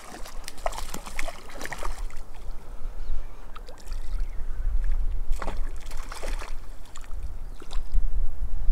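A hooked trout splashing and thrashing at the surface of shallow lake water, in a string of short, irregular splashes. A low wind rumble on the microphone grows stronger in the second half.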